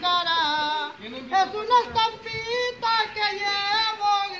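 A woman singing solo a Spanish song for mothers, holding long notes whose pitch wavers, phrase after phrase with short breaths between.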